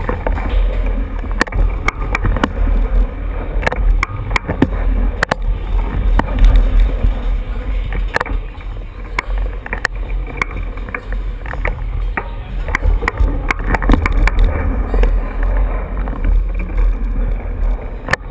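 A bicycle ridden fast across a smooth indoor floor: a steady low rumble with frequent sharp rattles and knocks.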